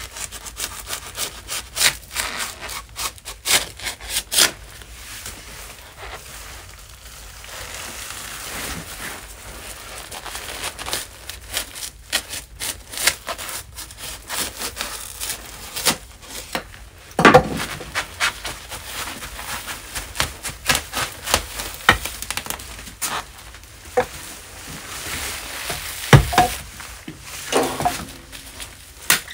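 Foil-faced insulation rustling and crinkling as it is handled and pressed flat against a log wall, with many small irregular clicks and taps. A few sharper knocks stand out, the loudest about halfway through and again near the end.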